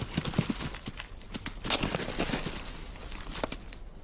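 Bharal rams' hooves clattering and scrabbling on stony, dusty mountain ground as they chase each other in the rut. It is a quick run of sharp knocks, busiest at the start and around the middle, with a single hard knock near the end.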